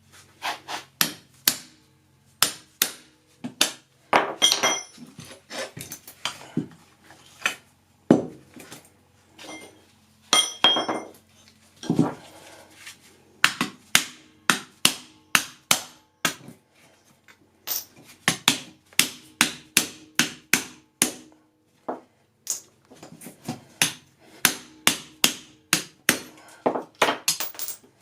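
Hammer blows on metal, struck irregularly about one to two a second with short pauses; a few blows ring out briefly. Typical of knocking apart old washing machine motors to get at their aluminium and copper.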